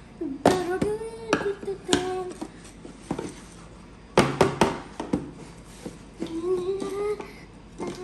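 A person humming a tune in long held notes, with several sharp clicks and knocks of objects being handled.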